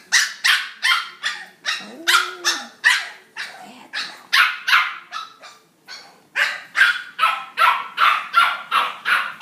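Dog shut in a wire crate barking over and over in short, sharp barks, two to three a second, with a brief lull about halfway through and then faster barking: protest barking at being confined during crate training.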